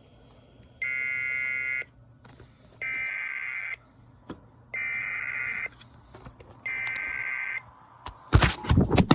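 EAS SAME header data bursts from a NOAA Weather Radio broadcast: four buzzy digital tone bursts of about a second each, roughly two seconds apart, the coded header that opens a weather alert. A cluster of loud clicks and knocks comes near the end.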